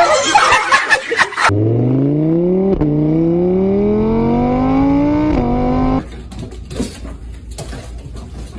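An engine accelerating through the gears: a steady rising whine that drops back twice and climbs again, then cuts off suddenly. It opens with a loud noisy rush and is followed by quieter clicks and rustling.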